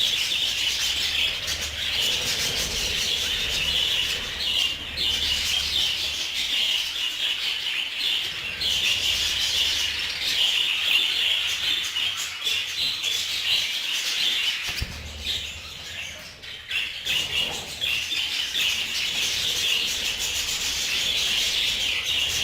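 A colony of budgerigars chattering and warbling continuously, many birds calling at once.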